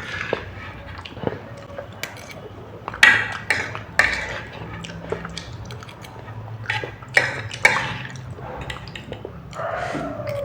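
Chopsticks clicking and scraping against a dish at irregular moments, with eating noises between the clicks.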